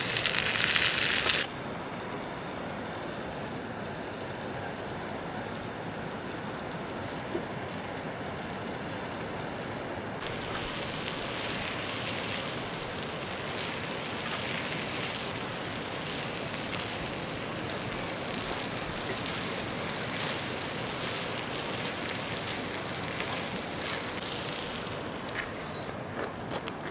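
Tomatoes and onions sizzling in a small metal pot over a wood fire. The sizzle is loudest for the first second or so, then settles to a steady, quieter hiss that brightens again about ten seconds in while the mixture is stirred.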